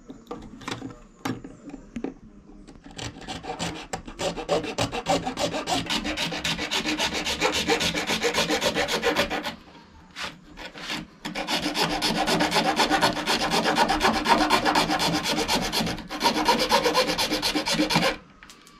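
A bare hacksaw blade, held in the hand without a frame, saws a small GoPro mount piece in fast back-and-forth strokes. It starts with a few scattered strokes, then runs steadily, stopping once in the middle and briefly again later.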